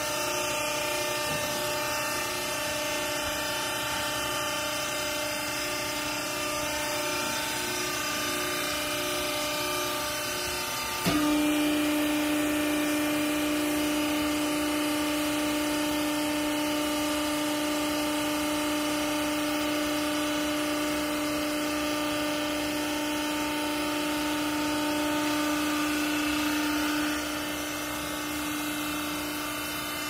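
Hydraulic power unit of a used-clothes baler running with a steady hum. About eleven seconds in there is a click, and the hum turns louder and steadier as the pump goes onto load driving the ram down into the bale chamber. It drops back shortly before the end.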